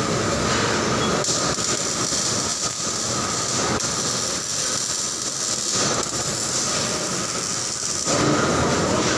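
Arc welding on a metal seat part, a steady hiss over the constant noise of factory machinery, getting louder near the end.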